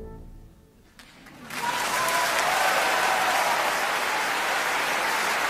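Music fades out, then steady applause starts about a second and a half in, with a few faint voices or whistles in it.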